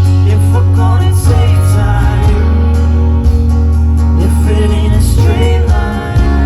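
A live band playing a song, with sung vocals over steady low bass notes and instruments.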